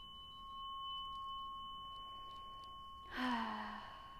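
A tuning fork rings on with a steady high tone, used for Biofield Tuning sound healing. About three seconds in comes a loud sighing out-breath whose voice falls in pitch, after a soft breath in.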